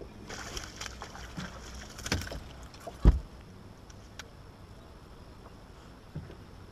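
Water splashing and clattering as a hooked bass is brought up to the boat, then one heavy thump on the boat deck about three seconds in as it is landed. After that only faint water and wind.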